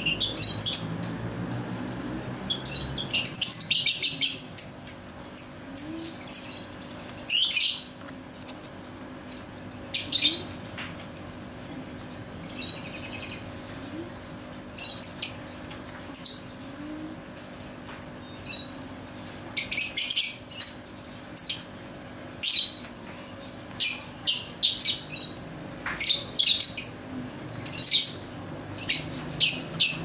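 Fischer's lovebirds chattering in rapid clusters of short, high-pitched chirps, a burst every few seconds.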